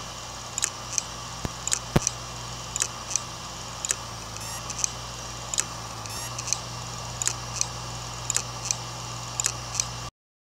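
3.5-inch Western Digital hard drive spinning with a steady hum while its heads click again and again, about two to three sharp clicks a second at uneven spacing: the 'click of death' of a failing drive. The sound cuts off suddenly near the end.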